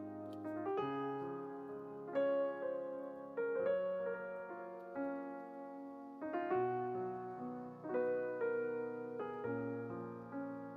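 Background music: a slow, gentle piano piece, with notes and chords starting every second or so.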